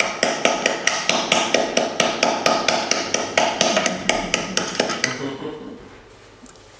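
Hands clapping: a quick, uneven run of sharp claps that fades out about five seconds in.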